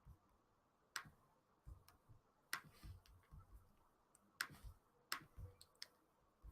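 Computer mouse clicking: about six sharp, separate clicks, a second or less apart, with faint low knocks under some of them, as colour options are picked in a web form.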